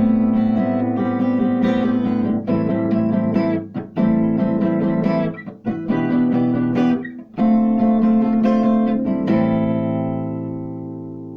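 Guitar music with plucked and strummed chords, its final chord ringing out and fading away near the end.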